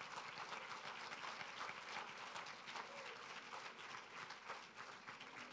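Congregation applauding: a dense patter of many hands clapping, easing off slightly near the end.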